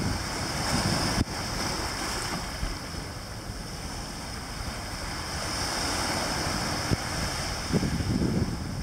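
Small waves washing up over a sandy beach and around rocks, a steady surf hiss. Wind buffets the microphone in gusts near the start and again near the end.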